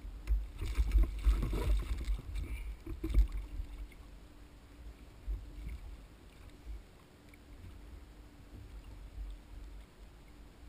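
Kayak afloat on open ocean: low rumble of wind and water on the microphone. During the first three seconds or so there is rustling and handling noise as an orange rubber glove is worked onto a hand, and after that the sound is quieter.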